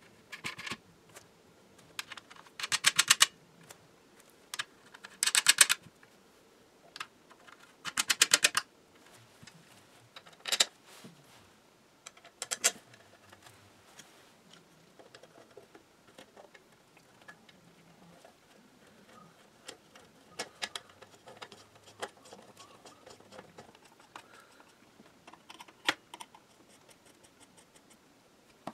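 Small metal hardware being fitted and tightened onto a radio panel with hand tools on a workbench. Four short bursts of rapid, even clicking come in the first nine seconds, then scattered light clicks and taps.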